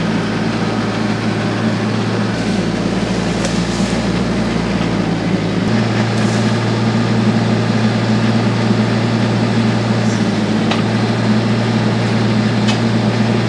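TYM T474 tractor's diesel engine running steadily under the operator, growing slightly louder about six seconds in.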